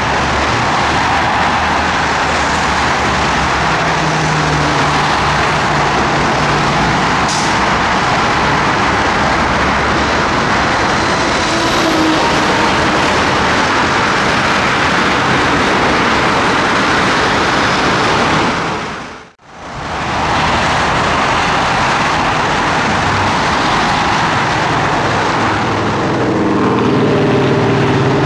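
Loud, steady rushing noise of passing vehicles. It drops out briefly about two-thirds of the way through, then resumes.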